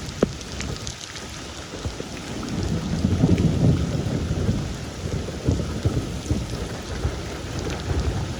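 Rain falling, with many close crackling drop clicks and a low rumble that swells about two and a half seconds in and fades after a couple of seconds.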